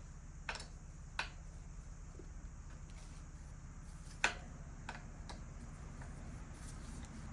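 A handful of sharp clicks and taps of hand tools and metal parts being handled while a BMX stem is fitted, the loudest about four seconds in, over a steady low hum.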